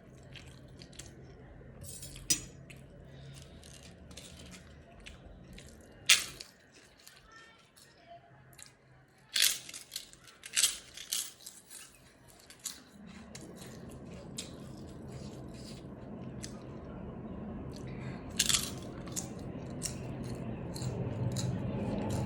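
Close-up eating sounds: a person crunching and chewing crisp food, with sharp clicks and rattles of utensils against a bowl scattered throughout. A steady low hum grows louder near the end.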